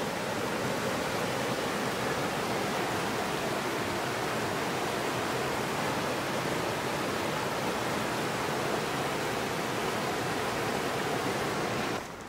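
Mountain creek rushing over rocks and small drops: a steady, even rush of water. It stops suddenly near the end.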